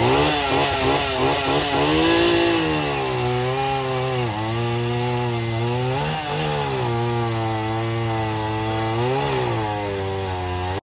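Vintage chainsaw engine running. Its pitch wavers up and down quickly for the first couple of seconds, then holds at a steady high speed with brief dips about four, six and nine seconds in.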